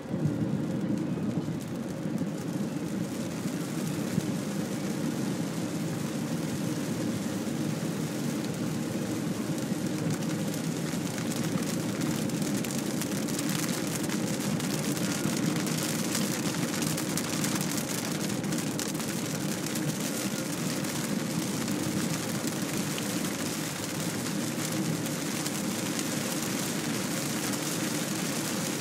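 Heavy rain falling on a moving car and its windscreen, mixed with the steady hiss and rumble of tyres on a wet road, heard from inside the cabin.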